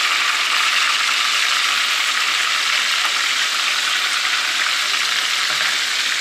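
Hot vegetable oil sizzling steadily around breaded meatballs deep-frying in a pan.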